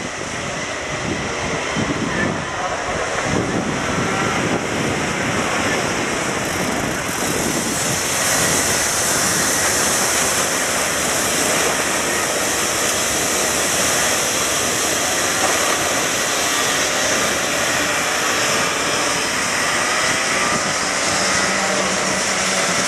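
A pack of two-stroke racing kart engines buzzing together, many engines revving up and down at once, growing louder over the first several seconds as the pack comes closer and then staying loud.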